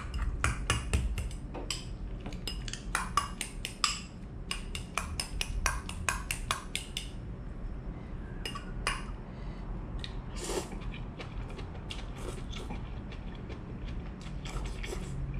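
A metal fork clinking and scraping against a glass bowl while noodles and pea sprouts are stirred together: rapid clicks for the first several seconds, then only occasional ones.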